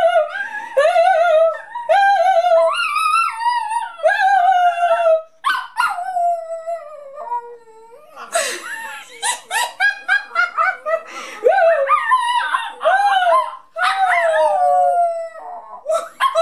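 A young puppy howling: long falling howls in the first few seconds, then from about halfway a busier run of shorter howls, yips and whimpers, with a woman howling along.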